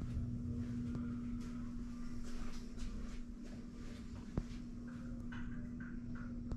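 Room tone: a steady low hum over a low rumble, with faint soft rustles and a single sharp click about four seconds in.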